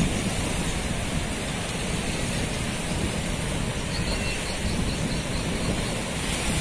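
Bono tidal bore surging upriver: a steady rush of churning, breaking muddy water.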